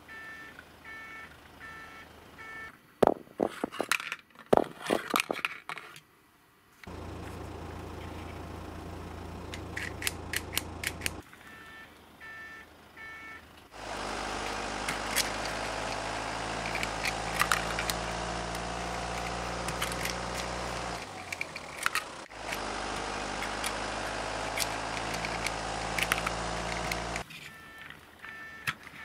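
Plastic toy construction trucks being played with by hand: sharp clicks and clatter of plastic parts and toy rocks, with a repeating electronic beeping at the start and again near the end. Long stretches of a steady engine-like drone run from about seven to eleven seconds and, louder, from about fourteen to twenty-seven seconds.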